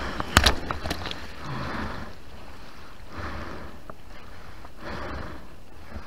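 Whitewater of a small breaking wave rushing and splashing around a bodyboard, heard right at the water's surface. It swells and fades every couple of seconds, with sharp splash hits about half a second in and again just before the second.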